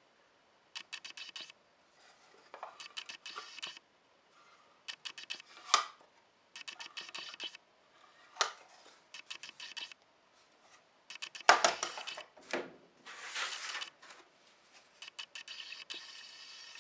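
Small laser-cut plywood boxes being handled: thin wooden lids and parts clicking, tapping and scraping in short bursts of rapid clicks, with near-silent pauses between them and a sharper knock a little past the middle.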